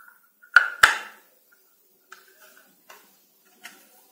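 Metal bolts and ball bearings being fitted into a 3D-printed plastic part: two sharp clicks with a short metallic ring under a second in, then a few faint taps and clinks.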